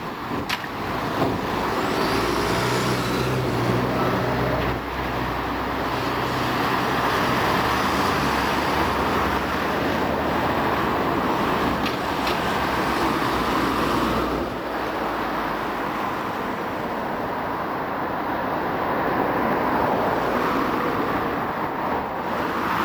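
Steady street traffic noise along a tramway, with trams and road vehicles passing. A low hum sits under it for a few seconds near the start, and the level drops slightly about two-thirds of the way through.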